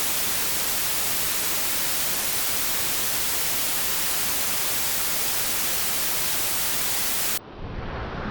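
Steady, even static hiss like electronic white noise, at one constant level across all pitches. It cuts off suddenly about seven seconds in, leaving wind rumbling on the microphone.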